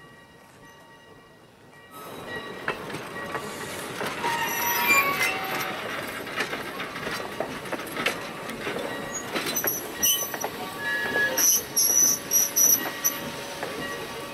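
A train of vintage passenger coaches rolls past close by, starting loudly about two seconds in. The wheels click and clank over the rail joints, with short high squeals from the wheels in the later part.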